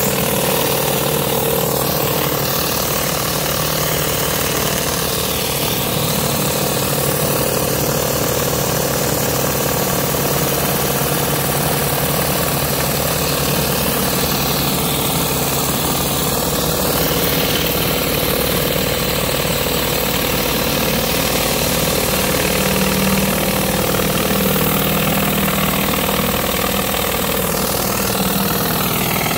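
Pressure washer running steadily: the motor's constant drone under the hiss of water jets from a rotary surface cleaner spinning over a concrete path.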